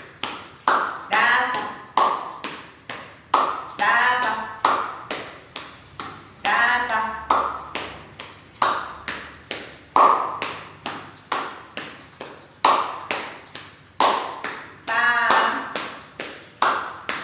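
Body percussion: a steady rhythm of sharp hand taps, about three a second, with a voice chanting short syllables such as 'da' and 'pa' between them.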